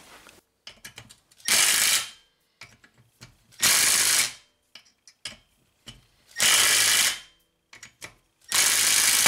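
Power driver run in four short bursts, each under a second and a couple of seconds apart, turning cap screws down through the puller holes of a Briggs & Stratton flathead's flywheel hub to push the flywheel off the crankshaft taper. Small clicks of the tool and screws come between the bursts.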